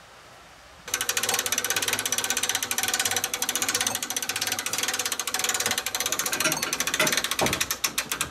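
Ratchet of a hand-cranked winch on a small truck-mounted crane, clicking rapidly and steadily as the crank is turned to hoist a wild boar carcass. It starts suddenly about a second in.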